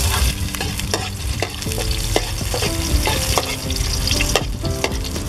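Food sizzling in hot oil in a steel wok while a metal ladle stirs it, with repeated irregular clinks and scrapes of the ladle against the wok.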